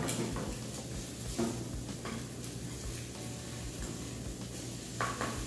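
Spatula stirring and scraping egg with diced zucchini and onion in a non-stick frying pan, with a light, steady sizzle of frying and a few short scrapes of the spatula on the pan.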